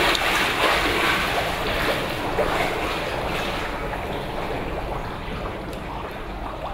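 Pool water jets churning and splashing, a steady rush of water that slowly dies down as the turbulence settles.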